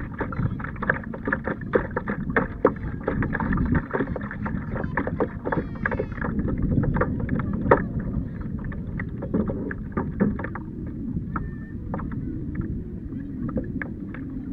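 Water slapping and splashing against the hull of a plastic tandem kayak under way, in many irregular short splashes, over a steady low rumble of wind on the microphone.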